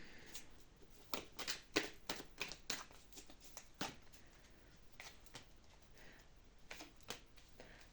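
Tarot cards being handled on a table: a scattering of faint, soft clicks and rustles, thicker in the first few seconds.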